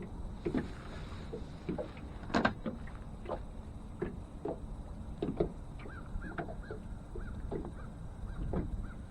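Small waves slapping irregularly against a boat hull, over the steady rumble of wind on the microphone.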